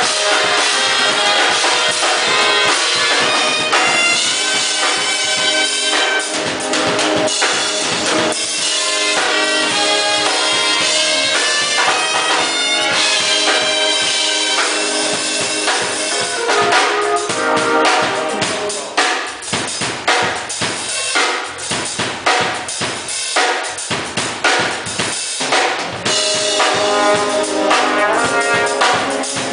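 Music with a drum kit under several pitched instruments. About halfway through, the drums come forward with a run of sharp hits before the fuller sound returns near the end.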